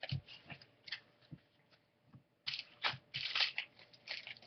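Trading cards being handled and flicked through in the hands. A few soft clicks and a short pause lead into a run of quick flicks and rustles from about halfway in.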